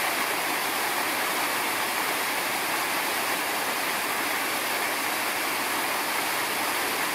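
A steady, even rushing noise, like running water.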